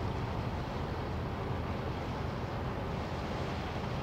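Cargo ship passing close by: a steady low rumble with the rush of water from its bow wave.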